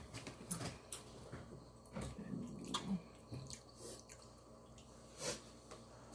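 Faint wet clicks and squishing of food being handled and eaten, with a few scattered sharp ticks, one louder about five seconds in.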